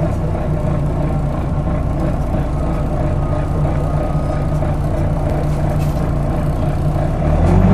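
Interior running noise of a Volvo B9TL double-decker bus on the move: its six-cylinder diesel engine and loud cooling fan make a steady drone. Near the end the level rises and a tone climbs in pitch as the bus picks up speed.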